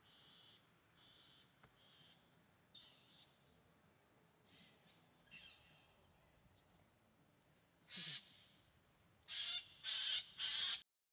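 Birds calling by a river: a few short high calls early, a louder call about eight seconds in, then three loud calls in quick succession near the end.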